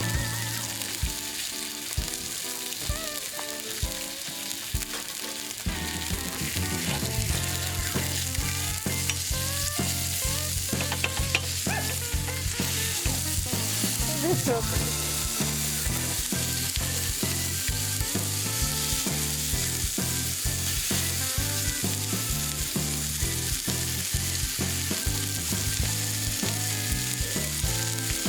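Food sizzling as it fries in a pan, a steady hiss.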